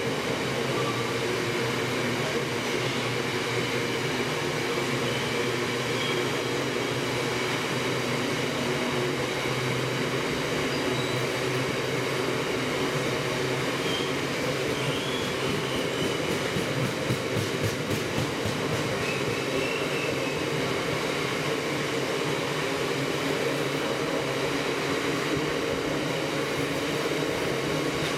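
Loaded TEA bogie oil tank wagons rolling past, a steady rumble of wheels on rail with a cluster of sharp wheel clicks a little over halfway.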